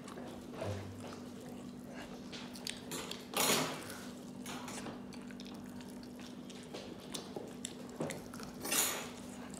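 Eating sounds up close: fried chicken being bitten into and chewed, with wet smacking and small mouth clicks, and two louder noisy moments about three and a half seconds in and near the end. A steady low hum runs underneath.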